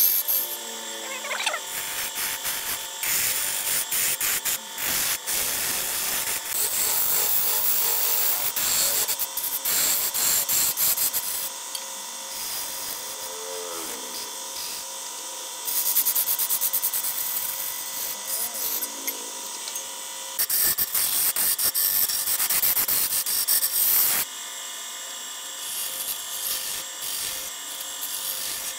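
Wood lathe spinning a large hardwood blank while a long turning chisel cuts into it: a harsh scraping that comes and goes in long stretches over the steady whine of the lathe.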